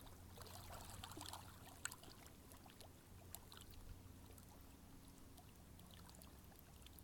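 Near silence: a faint steady low hum and hiss with a few soft ticks.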